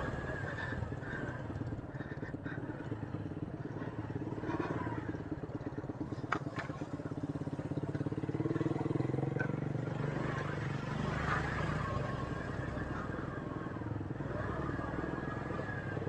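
Motorcycle engine running at low speed, its pitch rising a little about halfway through, with one sharp click about six seconds in.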